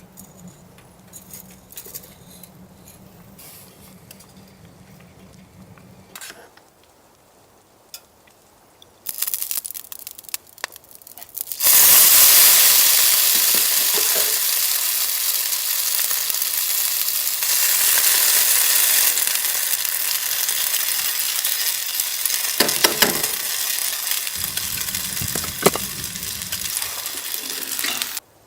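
Food frying in a hot pan: a loud sizzle starts suddenly about twelve seconds in as the food goes in, with a few clinks of a utensil stirring it.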